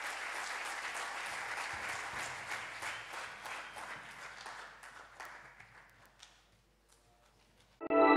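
Theatre audience applauding with many hands clapping, fading away to silence. Loud music starts abruptly right at the very end.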